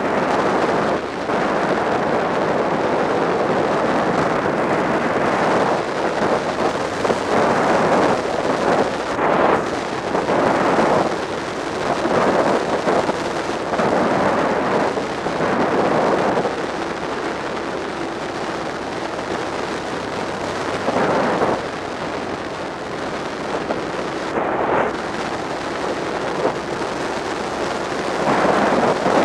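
Wind rushing over the microphone of a camera on a moving motorcycle, swelling and easing in gusts, with the motorcycle's engine running underneath at road speed.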